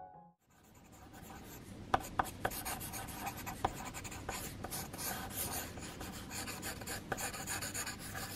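Pencil sketching on paper: quick scratchy strokes with a few sharper ticks, starting about half a second in.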